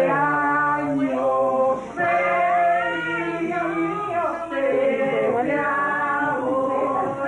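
A small group of people singing together, with long held notes.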